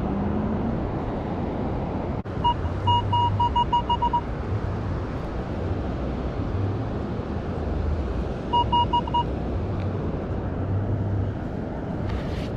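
Metal detector giving its target signal: a high, buzzy beep in two runs of quick pulses, about eight beeps a couple of seconds in and four more about two-thirds of the way through, as the coil passes over buried metal. Under it is a steady rushing background noise.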